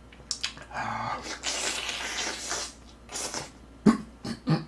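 Close-up mouth sounds of eating a fried chicken drumstick: noisy chewing and breathy hissing for about two seconds, then a few sharp lip smacks near the end.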